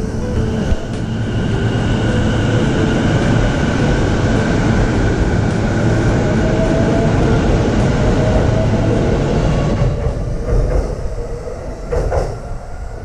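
A JR Saikyo Line E233-series electric commuter train pulls out and accelerates away along the platform, its wheels rumbling over the rails. The motor whine rises slowly in pitch as the train gathers speed. The sound fades from about ten seconds in as the last car moves off.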